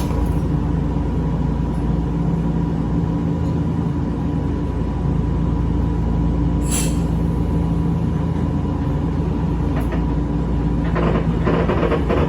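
Echizen Railway 5001-series train running steadily, a low rumble with a steady hum. A brief hiss comes about seven seconds in, and a run of wheel clatter over the rails begins near the end.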